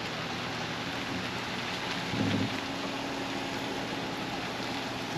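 A vehicle engine running steadily under a constant hiss as it pulls out, with a brief low swell about two seconds in.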